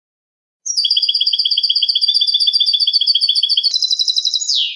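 European goldfinch singing a clean-song phrase: a fast trill of evenly repeated notes starting about half a second in, switching to a higher trill about three seconds in and ending on a falling note.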